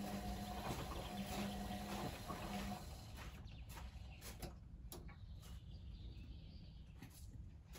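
ATLANT 45Y82 front-loading washing machine in prewash: its drum motor hums in short stretches as it turns the wet load, then stops about three seconds in. Faint splashes and drips from the resting drum follow.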